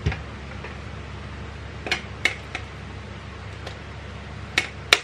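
Several sharp plastic clicks and taps from handling a 1/24 mini RC crawler and its transmitter as it is switched on, the loudest two near the end, over a steady low hum.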